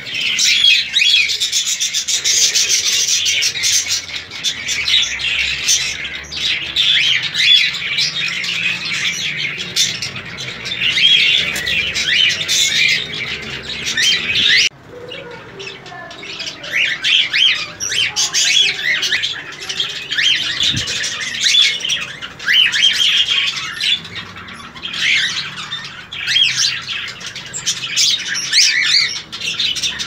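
Cockatiels chirping and squawking constantly, many quick calls overlapping, with a sudden brief drop in loudness about halfway through.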